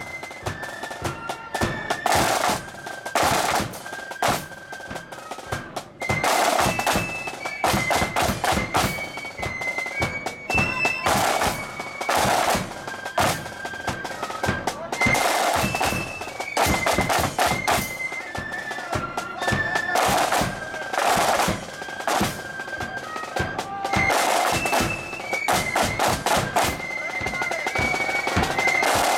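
Marching band playing: snare drums beating rhythms with repeated loud rolls, and a bass drum, under a high flute melody that steps up and down.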